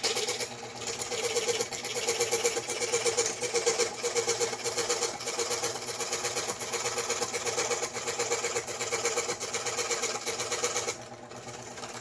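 Scroll saw with a fine-tooth junior hacksaw blade cutting through a protoboard circuit board: a fast, even chatter of reciprocating blade strokes, turning quieter about eleven seconds in.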